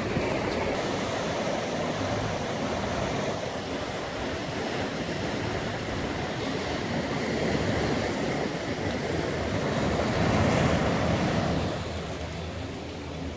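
Ocean surf breaking and washing over a rocky shore and beach: a steady rushing that swells about ten seconds in, then eases off near the end.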